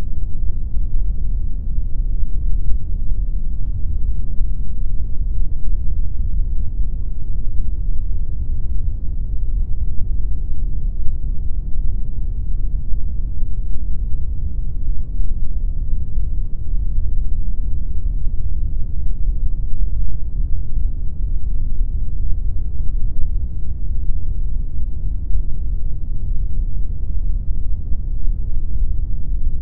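Steady generated pink noise: an even, deep rush with no change and little treble.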